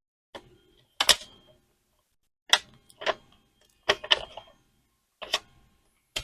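Sharp clicks and taps from hands working on the ThinkPad laptop's RAM, about eight of them at irregular intervals.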